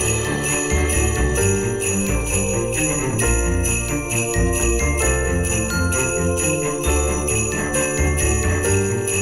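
Background music with a steady beat over a moving bass line, with bells ringing along.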